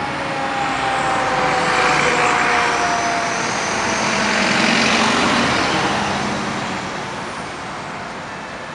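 Street traffic passing close by: cars and a delivery step van driving past. The tyre and engine noise swells twice and then fades, with a faint whine that slowly falls in pitch over the first few seconds.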